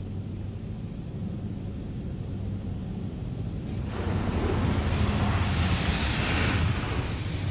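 WashWorld Razor touch-free car wash heard from inside the vehicle: a low steady hum, then about four seconds in a loud hiss of high-pressure water spray striking the car, easing off near the end.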